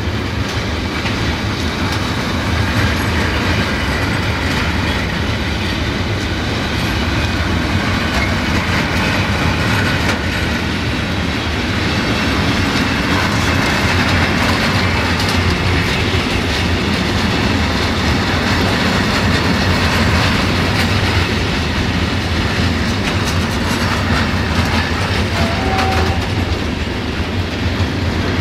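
Rail wagons rolling past, their wheels clicking steadily over the rail joints.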